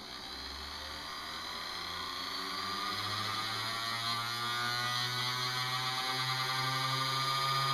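Small brushed electric motor from a 1960s palm massager spinning up as the variac voltage is raised toward its maximum: a whine that rises steadily in pitch over a low hum, growing louder throughout.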